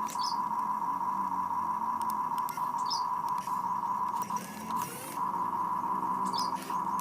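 Radio-controlled model excavator working: a steady high electric whine with lower motor hums that shift as it moves, small clicks and brief squeaks. The whine drops briefly past the middle.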